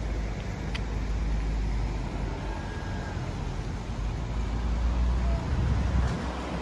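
Street traffic ambience: cars running along the road, over a steady low rumble.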